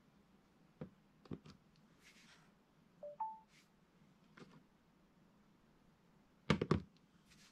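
Scattered plastic clicks and taps on a digital LED desk alarm clock with a wireless charger. About three seconds in it gives a short two-note electronic beep, a low tone stepping up to a higher one. Near the end comes a quick cluster of louder clicks.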